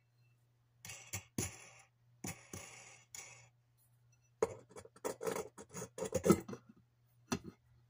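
Frosted glass light dome scraping and knocking against the metal base of a ceiling light fixture as it is pushed and turned into place. It comes in short, uneven scrapes, with a busier run of louder ones about halfway through and one more near the end.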